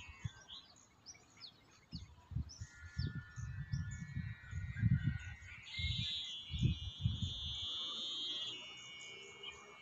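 Birds chirping with a steady high whistling tone underneath, while wind rumbles on the microphone in irregular gusts.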